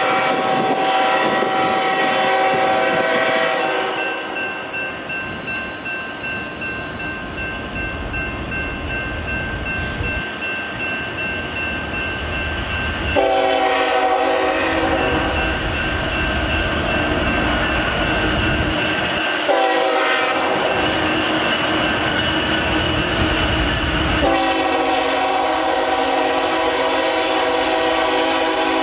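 Diesel freight locomotive horn sounding several long blasts for a grade crossing as the train approaches. Between the blasts a low engine and rail rumble grows louder, and a steady high crossing-signal bell rings. The last blast starts about 24 seconds in and is still sounding as the lead locomotive reaches the crossing.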